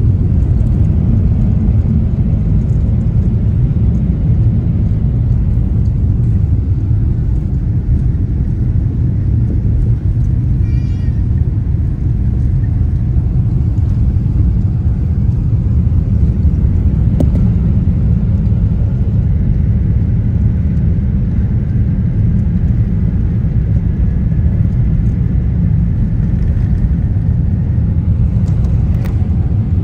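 Cabin noise of a Boeing 787 taxiing: a steady, loud low rumble from the engines and the rolling airframe.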